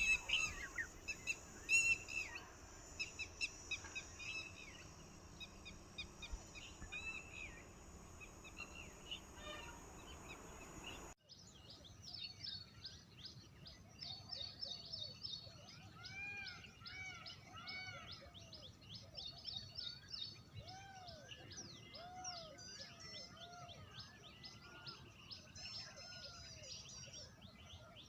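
Several wild birds chirping and calling over one another in many short, quick notes. The mix changes suddenly about eleven seconds in, to a different chorus of repeated, arching calls.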